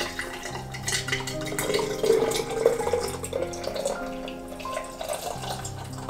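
Hot vegetable broth pouring through a metal funnel into a glass bottle, splashing and gurgling as the bottle fills, strongest in the middle of the pour.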